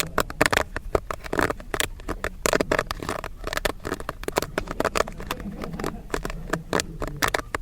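Popcorn kernels popping as they are heated: rapid, irregular sharp pops, several a second, over a low steady hum.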